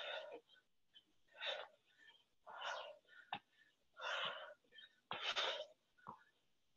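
A person's short, breathy exhalations, about one every second or so, forced out with the effort of each oblique twist.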